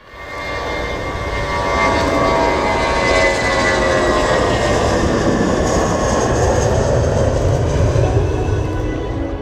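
Jet airliner's engines running at high power on the runway: a deep rumble with a whine over it, growing louder over the first two seconds and then holding steady.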